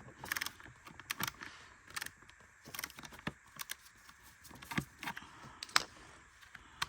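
Scattered, irregular light clicks and taps of a screwdriver working a screw and plastic vacuum cleaner housing parts being handled during disassembly.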